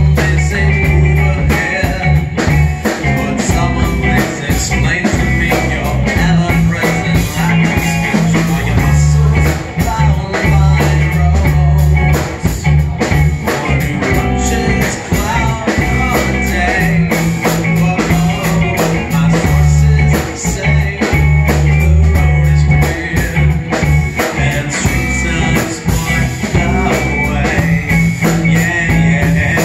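Live band playing a song: a man singing into a microphone over electric bass, electric guitar and a drum kit keeping a steady beat, with heavy bass notes.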